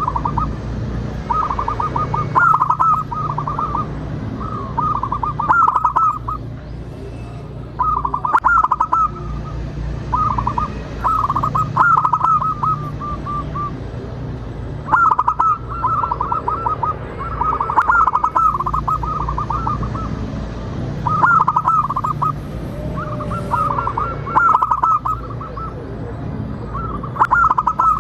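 Zebra dove singing its staccato cooing song, phrase after phrase of rapid short notes repeated every two to three seconds, over a low steady hum.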